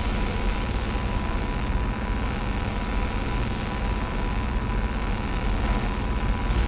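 Lightsaber sound effect: a steady, deep electric hum with a thin high tone over it, cutting off suddenly at the end.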